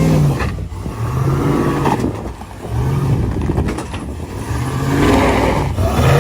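Truck engine revving up and down several times under load, pitch rising and falling in surges, with a rough rushing wash behind it.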